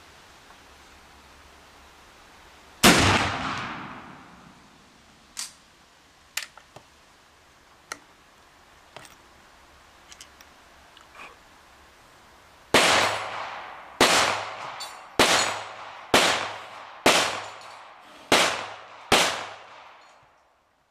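A single loud shot from a Werndl M1873/77 single-shot rifle, fading out over about a second, then a few faint clicks. Near the end a string of seven sharp gunshots follows, about one a second.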